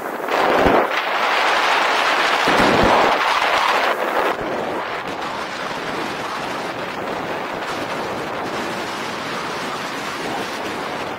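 Wind rushing over the microphone of an electric scooter ridden at around 40 to 70 km/h, loudest and roughest for the first four seconds, then steadier.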